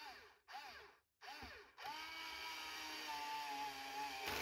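Small electric screwdriver driving a screw into a plastic appliance housing: three short bursts of the motor whirring up and down, then a steady run of about three seconds whose pitch drops slightly partway through.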